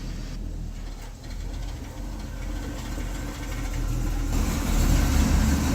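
A vehicle engine running steadily with a low hum, growing louder about four seconds in as it takes on more throttle.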